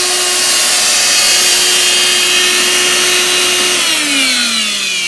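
Wet/dry shop vacuum motor running with a steady whine while pulling suction on a sealed tractor hydraulic tank. About four seconds in it is switched off, and the whine falls in pitch as the motor spins down.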